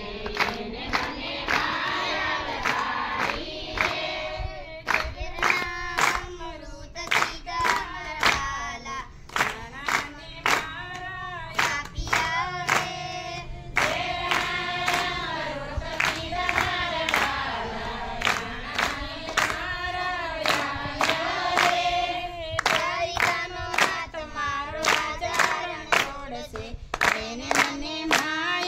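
A group singing a Gujarati Gor Ma devotional song, kept in time by steady hand-clapping at about two claps a second.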